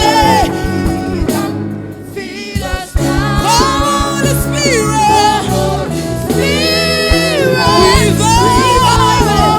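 Live gospel music: singers over keyboard, bass and drums. The band thins out briefly about two seconds in, then comes back in full.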